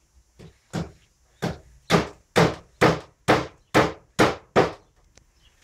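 Hammer striking wood: about nine hard blows at roughly two a second, each ringing out briefly. The blows start about a second in and stop shortly before the end.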